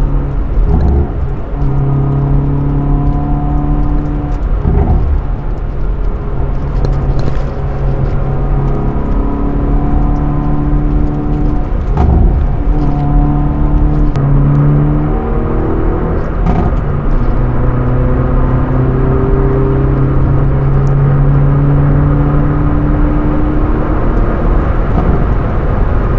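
Hyundai Veloster N's turbocharged four-cylinder engine heard from inside the cabin while driving, over steady road noise. The engine note steps up and down in pitch several times, with brief breaks in it.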